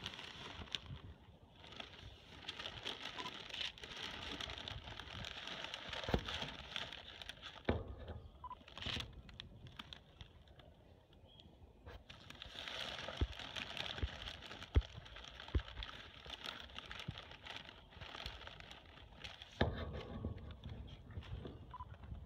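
A large brown paper bag stuffed with leaves crinkling and rustling as a black bear noses and paws into it, in two long stretches with a quieter lull between them and a scatter of sharp clicks.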